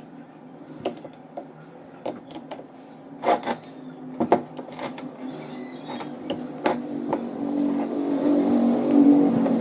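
Scattered sharp metal clinks and knocks from work on a cast-iron vise. From about halfway, a vehicle engine running in the background grows steadily louder until it is the loudest sound.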